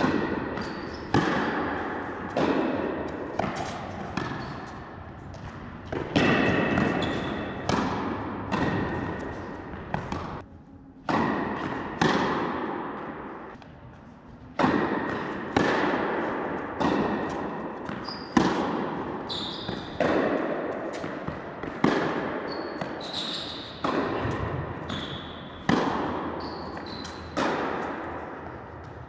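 Tennis rally in a large indoor hall: racket strikes and ball bounces about once a second, each ringing out in the hall's long echo, with a few short high-pitched squeaks in between.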